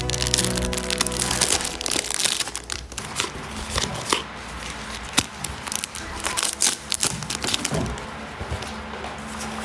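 Crinkling and crackling of a card pack's wrapper as it is handled and opened, in many irregular crackles. Music plays at the start and fades after about a second and a half.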